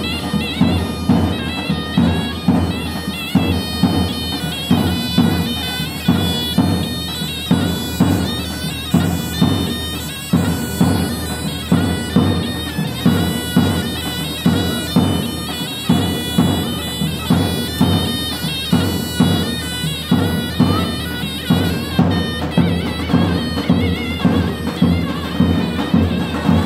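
Zurna playing a Turkish folk bar dance tune over a steady drum beat of about one stroke a second.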